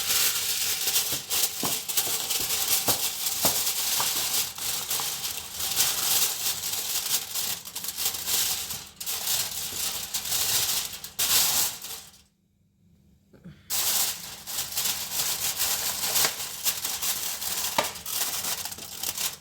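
Aluminium kitchen foil crinkling and rustling as it is pulled over and pressed down around a roasting tray. It stops for about a second and a half a little past the middle, then starts again.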